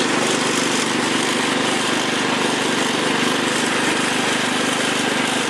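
Kohler Command 15 hp OHV single-cylinder engine of a 1996 Craftsman riding mower running steadily at full throttle under load, climbing a hill in fourth gear with plenty of power.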